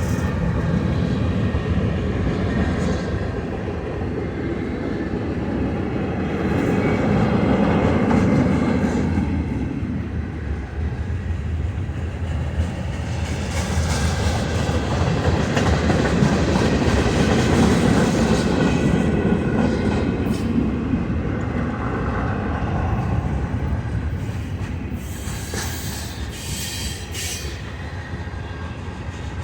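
Freight cars of a long manifest train rolling past: a steady rumble and clatter of steel wheels on the rails, with faint wheel squeal, swelling and easing as the cars go by.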